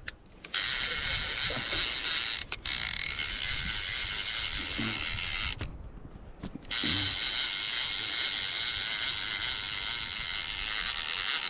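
Fishing reel's clicker buzzing steadily as a catfish runs with the bait and pulls line off the spool, stopping briefly a few times. It is the sign that a fish has taken the bait and is running.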